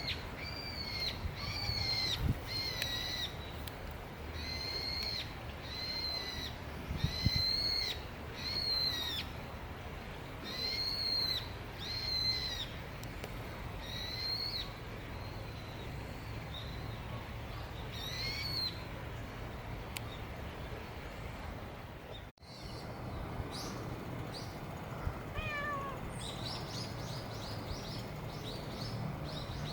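An animal calling: a regular series of short, high-pitched calls, about one every 0.7 seconds, which stops after about eighteen seconds. After a brief break, a few faint falling chirps and quick high calls come near the end.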